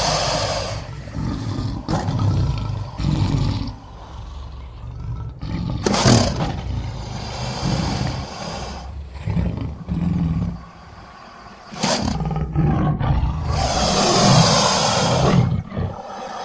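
Invented creature vocalizations for the gorgonopsid Inostrancevia alexandri: a string of deep growls broken by harsh roars. The roars come at the start, about six seconds in, about twelve seconds in, and a long one near the end.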